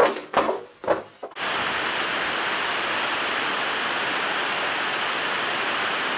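A few sharp clicks and knocks, then, a little over a second in, the steady rush of a waterfall starts abruptly.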